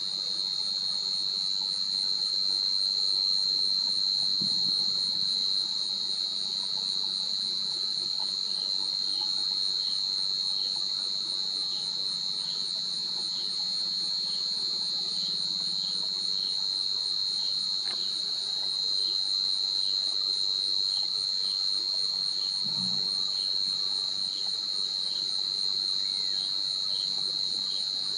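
Steady, shrill insect chorus droning without a break, with a faint pulse about once a second beneath it.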